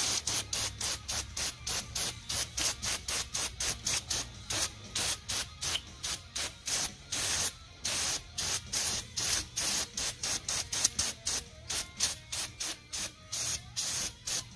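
Spray cleaner squirted onto an oily engine cylinder head in rapid short bursts, about three a second, each a sharp hiss.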